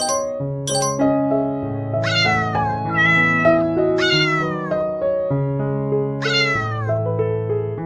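A cat meows four times, each meow sliding down in pitch, over soft keyboard background music.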